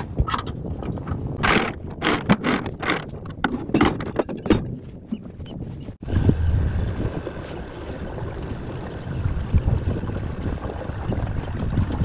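Knocks and scrapes at the bow of a small boat as the anchor is hauled up. After an abrupt change about six seconds in, the boat's motor rumbles low and steady, with wind and water noise as the boat moves off.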